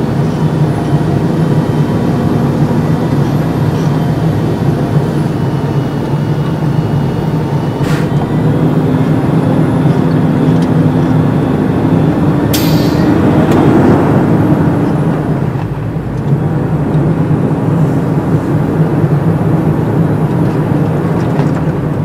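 Heavy truck's engine running steadily, heard from inside the cab as it drives over rough, muddy ground. About halfway through there is a sudden hiss of air that fades within a second or two, while the engine pitch briefly rises.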